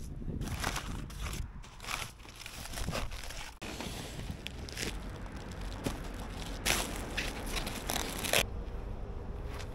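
Crumpled kraft packing paper rustling and crackling as it is pulled out of a cardboard box, then plastic wrapping rustling as the e-scooter is unwrapped. The rustles come in irregular handfuls, loudest near the end.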